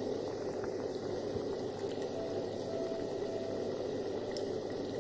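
Hot oil bubbling and sizzling steadily around an oat-coated banana fritter as it deep-fries, with faint scattered crackles.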